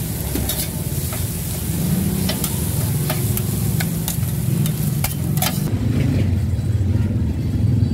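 Pork sisig sizzling on a steel flat-top griddle while metal scrapers clack and scrape against the plate as the meat is chopped and stirred. The sizzling and clacking stop about three quarters of the way through, leaving a steady low engine rumble.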